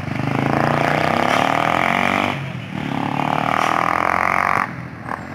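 A vehicle engine pulling hard on a climb. It dips briefly about two and a half seconds in, like a gear change, then picks up again and eases off near the end.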